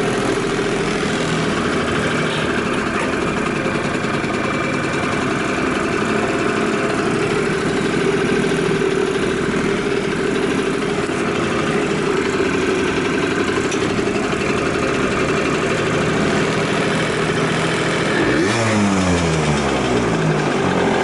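Honda NS-1's 50cc two-stroke single, fitted with a big carburettor, idling steadily; about three seconds before the end it is revved up, the pitch rising. The seller describes the engine as free of abnormal noise.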